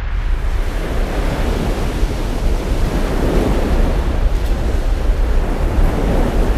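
Sound effect of sea waves and wind: a steady, even rushing of water and air.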